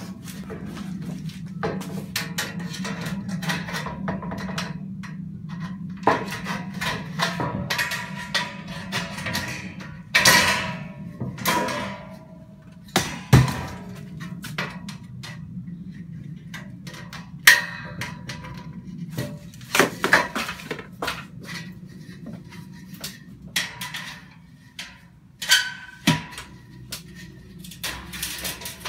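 Irregular knocks, clatters and bangs of building work in a bare garage, some sharp and loud, the sharpest a little past halfway, over a steady low hum.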